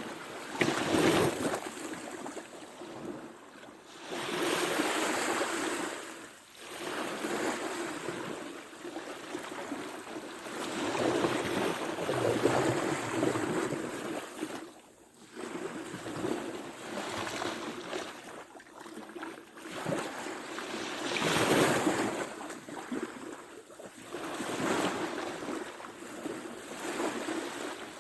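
Ocean surf: waves breaking and washing up, the roar swelling and falling every few seconds, with some wind on the microphone.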